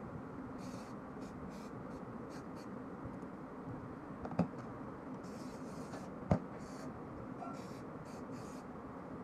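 Cloth rubbing and wiping over steel parts of a stripped-down TT pistol in short, irregular strokes, with two sharp knocks of metal parts set down on the table about four and six seconds in.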